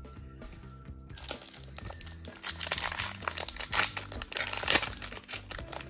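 Foil wrapper of a Pokémon trading-card booster pack crinkling and tearing as it is ripped open by hand. The crackling starts about a second in, over soft background music.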